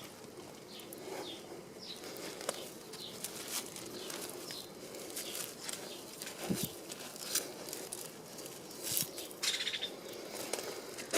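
Hands digging through dry soil and dead potato vines: scattered rustling, crackling and scraping, with a soft thump about six and a half seconds in.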